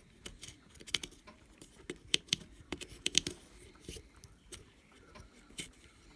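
Handling noise: scattered light clicks and taps of fingers moving a plastic mass airflow sensor housing, with a few sharper ticks about two and three seconds in.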